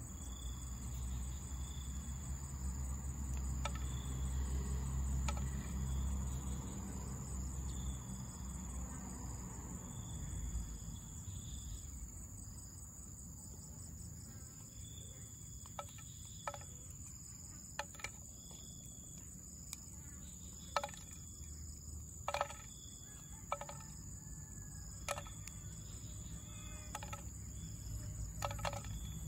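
Green petai belalang (Leucaena) pods being snapped open by hand: about ten sharp, separate snaps, starting about halfway and loudest of all. Under them a steady high insect drone with short chirps, and a low rumble in the first dozen seconds.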